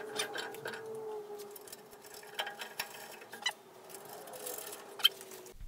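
Irregular metallic clicks and clinks as the nuts holding the rip fence rail to the bandsaw table are tightened, over a faint steady hum, with one sharper click near the end.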